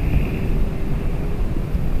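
Steady low rumble of wind on the microphone mixed with vehicle noise, without clear strokes or breaks.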